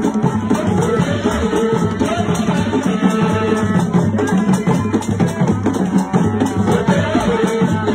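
Traditional African dance music: drums and rattles playing a steady beat.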